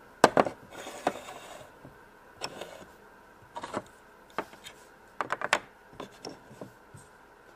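Plastic toy blocks and figures being handled, making scattered sharp clicks and taps, with a few quick runs of clicks.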